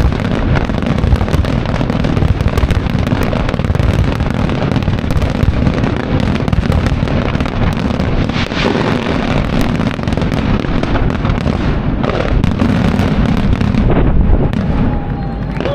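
Display fireworks firing in a dense, unbroken barrage of overlapping bangs and crackles over a heavy low rumble. The crackle thins out in the last couple of seconds.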